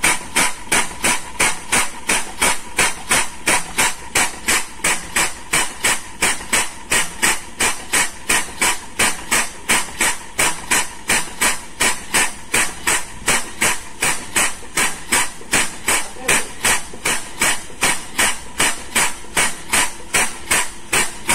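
Air-operated double-diaphragm pump running, a sharp hiss of exhaust air with every stroke, about two and a half strokes a second at an even beat. It is sucking up the leftover crude palm oil that the ship's own pumps can no longer lift.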